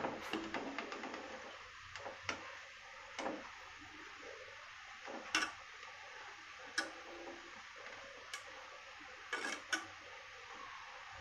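Gulab jamun dough balls deep-frying in hot oil with a steady sizzle, and sharp clinks now and then as a wire spider skimmer knocks against the metal kadai, about ten in all.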